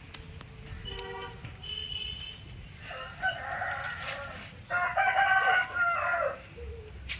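Indian country rooster crowing: one long crow in two drawn-out parts starting about three seconds in, after a couple of fainter short calls from the flock.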